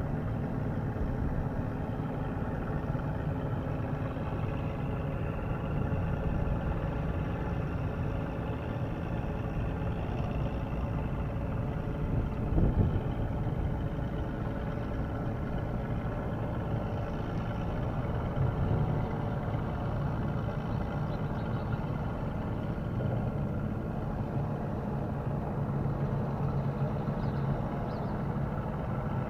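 Steady low engine drone with a constant hum, with a brief louder knock about twelve seconds in.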